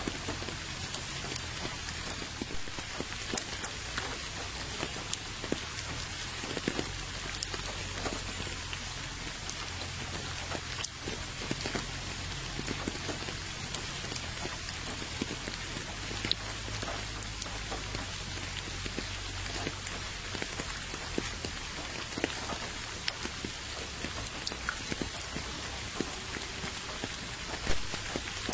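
Steady rain, a dense patter of individual drops with a couple of louder drips.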